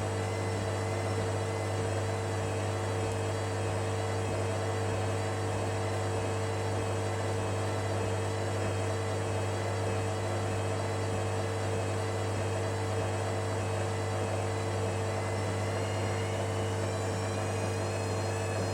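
Hoover Dynamic Next washing machine running with a steady low hum, late in its wash cycle just before the spin.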